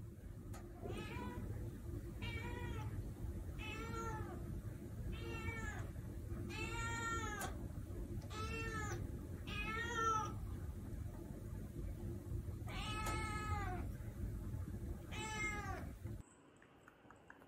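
A cat meowing over and over: about nine drawn-out meows, each rising and then falling in pitch, one every second or two with a longer pause before the last two, over a steady low hum.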